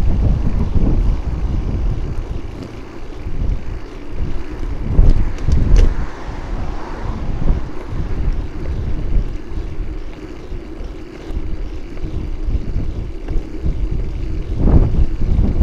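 Wind buffeting the microphone of a camera mounted on a moving bike, a gusty low rumble that swells louder a few times, with road noise underneath.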